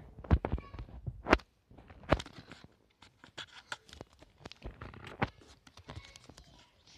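Scattered knocks, scuffs and rustles of a handheld camera being moved and handled, with a few sharper knocks in the first half.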